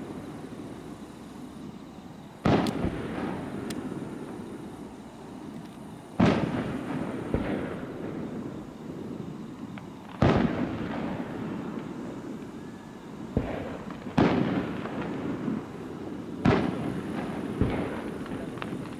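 Fireworks shells bursting one after another: about seven loud bangs one to four seconds apart, each trailing off in a rumbling echo.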